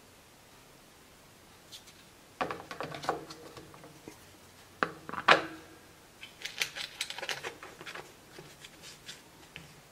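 Plastic knocks and clicks as a pleated paper air filter element is set into an air compressor's plastic intake filter housing and the housing cover is fitted back on. Two sharper knocks about five seconds in are the loudest, followed by a run of lighter clicks.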